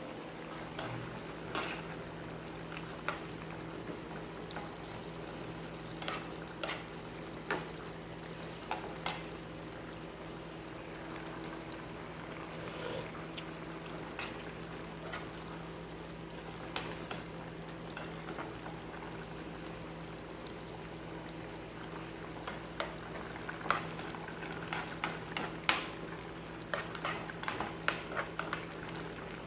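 Chicken adobo simmering in its sauce in a frying pan on a gas stove: a steady noise with a low steady hum under it and scattered clicks. In the last few seconds a metal spoon clicks and scrapes against the pan as the adobo is stirred.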